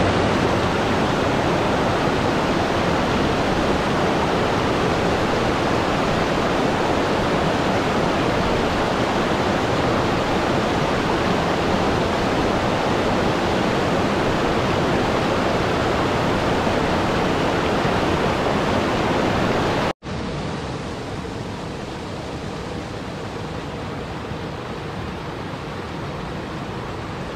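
Steady rush of water from a mountain waterfall cascading over rocks. About two thirds of the way through it breaks off for an instant and gives way to a quieter rush of water spilling over boulders into a river.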